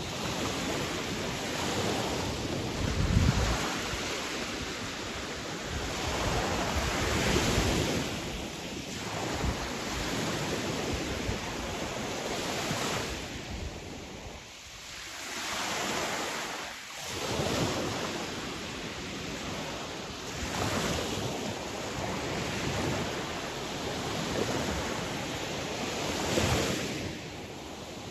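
Sea waves washing on a shore, the surf swelling and easing every few seconds with a short lull midway. A heavier low rumble comes about three seconds in.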